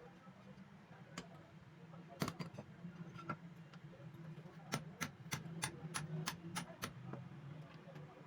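Sharp clicks over a low steady hum: a couple of single clicks, then a quick run of about eight at roughly four a second.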